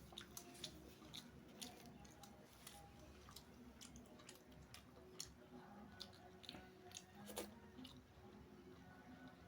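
Faint, close-miked chewing and wet mouth sounds from someone eating beef biryani with gravy: irregular soft clicks and smacks, the sharpest about seven seconds in.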